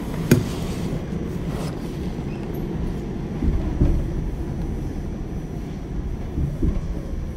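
Subway train running, heard from inside the car: a steady low rumble, with a sharp click just after the start and a few short knocks from the running gear around the middle and near the end.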